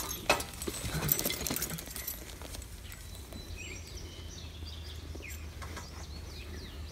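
Faint birds chirping over quiet field ambience, with a few knocks and rustles in the first couple of seconds.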